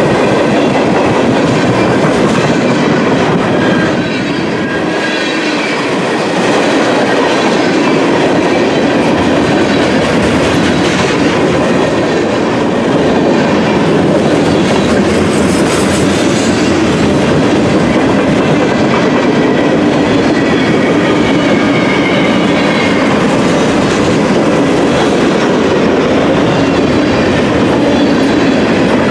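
Mixed freight train's cars rolling past close by: tank cars, loaded flatcars and covered hoppers. Steel wheels on rail give a loud, steady rumble with the clickety-clack of the wheels over the rail joints.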